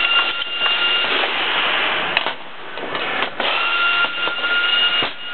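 A machine running with a steady hiss and a fixed high whine. It cuts out about two seconds in, returns about a second later, and drops out again near the end, each change marked by a sharp click.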